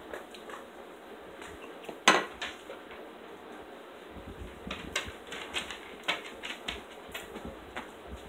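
A plate set down on a tiled tabletop with one sharp clack about two seconds in, followed by a run of lighter clicks and knocks of dishes and table handling.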